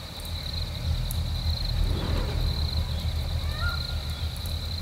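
Campfire burning with a low rumble of flames and a few faint crackles, under a steady high tone.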